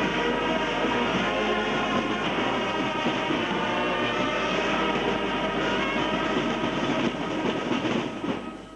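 Music with many pitched lines over a dense rhythmic clatter, fading out near the end.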